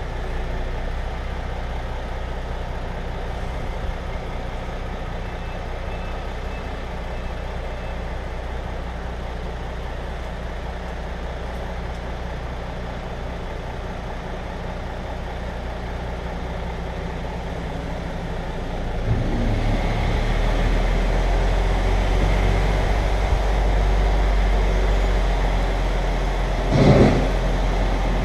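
MAN lorry's diesel engine running steadily. About two-thirds of the way through, its low rumble gets louder, and a brief loud burst of noise comes near the end.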